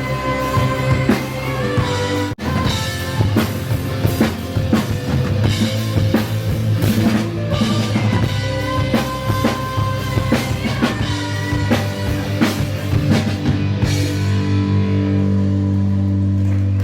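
Rock music with a drum kit pounding over bass and guitar. It cuts out for an instant about two seconds in. Near the end the drums fall away, leaving a held low chord.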